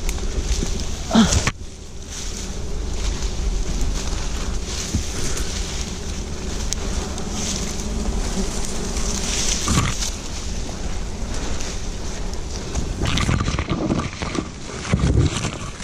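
A man breathing hard and grunting with effort as he climbs down a tree trunk, with leaves and branches rustling and scraping against him and the phone. A few short strained grunts stand out, about a second in, near ten seconds, and again near the end.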